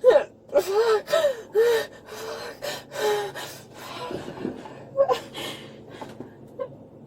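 A young woman gasping and sobbing during a panic attack: a quick run of short, breathy cries in the first three seconds, then fainter uneven breaths.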